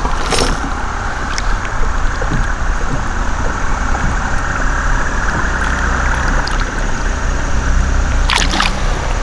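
Water sloshing and gurgling as a hand lowers a small spotted bass into a lake and releases it, with a few sharper splashes about eight seconds in.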